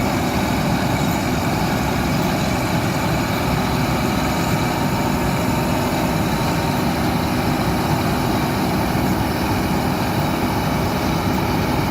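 New Holland 8070 combine harvester running steadily, its heavy engine and machinery making a loud, even noise.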